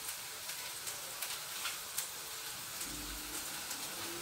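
Zucchini rounds dredged in flour sizzling as they fry in hot oil in a pan, a steady hiss scattered with small crackles and pops. A low hum comes in about three seconds in.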